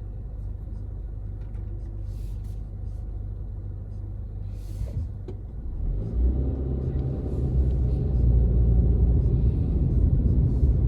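Car engine and road noise heard from inside the cabin while driving: a steady low rumble that grows louder about six seconds in.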